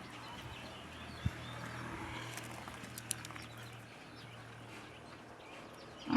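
Pigs shuffling about in a pen, with scattered bird chirps and a few sharp knocks, the loudest right at the end.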